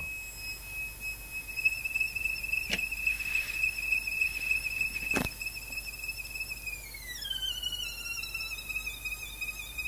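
High-pitched steady whine from a pulse motor's coils, which the builder takes for the two coils in resonance, sounding whether or not the rotor spins. Two sharp clicks come a couple of seconds apart. About seven seconds in, the whine glides down to a lower pitch and holds there.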